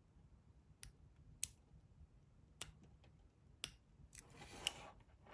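Master Lock Pro 6850 padlock being picked: four sharp metallic clicks of the pick working the pins, about a second apart, then faint scraping and rattling of the pick and lock from about four seconds in.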